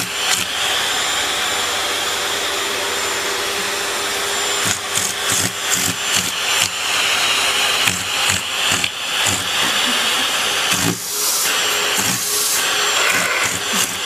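Vacuum cleaner running with a steady whine and hiss. From about four and a half seconds in, it is broken by a run of irregular knocks and clatters.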